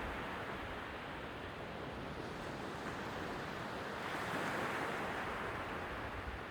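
Sea waves washing on the shore, with one wave swelling about four seconds in and slowly fading.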